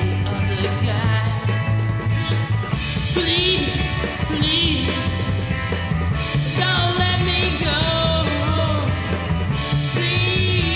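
Rock band playing an instrumental passage: a steady bass line under a lead melody that bends and wavers in pitch, with drums.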